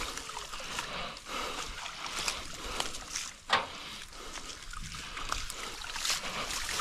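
Water splashing and sloshing, with scattered small knocks and one sharper knock about three and a half seconds in.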